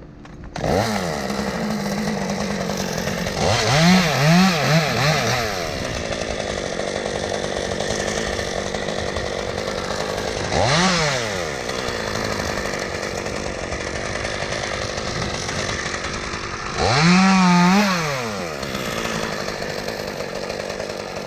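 Gas chainsaw engine running steadily, revved up and back down several times: a quick flurry about four seconds in, once around eleven seconds, and a longer rev near the end.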